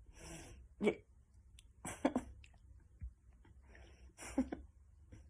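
Pet bird making short, throaty, raspy vocal sounds, three of them about two seconds apart.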